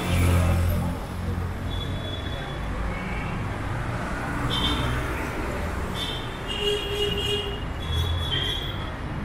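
Steady city road traffic, with a motorcycle engine passing close by in the first second.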